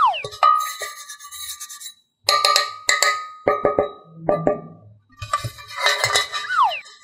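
Fingers tapping and pressing the cups of a muffin-tin-shaped tray: a string of sharp clicks in quick clusters, each with a short ring. Two falling whistle-like tones sound, one at the start and one near the end.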